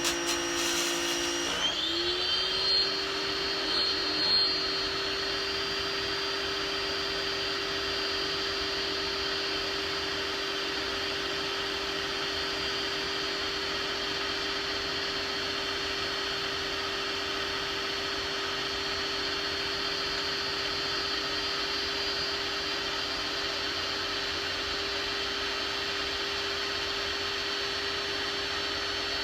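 Small 1,700 PSI pressure washer running steadily, its pump motor whining over the hiss of the water jet spraying black walnuts. The pitch steps up slightly about a second and a half in, then holds. The washer is too weak to strip the hulls.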